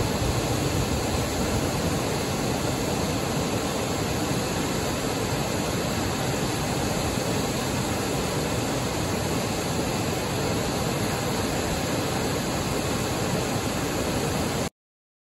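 Wide, low waterfall pouring over a rock ledge into a river pool: a steady rush of falling water, which cuts off abruptly near the end.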